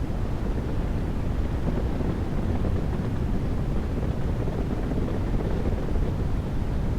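Steady rushing noise, heaviest in the low end, with no change or events: a white-noise background track.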